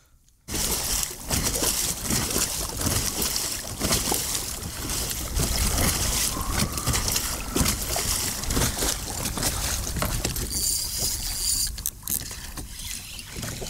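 Water splashing and rushing along a kayak as it is moved through the water while trolling a lure, with wind buffeting the microphone. The sound starts suddenly about half a second in, and a brief high hiss comes in near the end.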